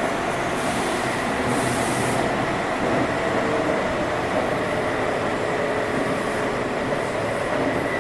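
Seibu 6000 series electric train running at speed through a subway tunnel: a steady rumble of wheels on rail and running gear, with faint steady motor tones over it, heard from inside the car.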